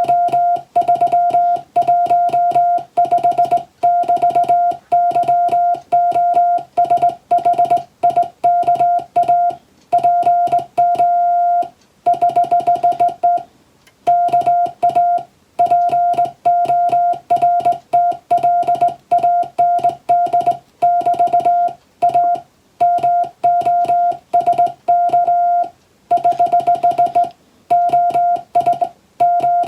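Morse code sent in English letters: a single steady-pitched beep keyed rapidly on and off in dots and dashes, in groups broken by brief pauses.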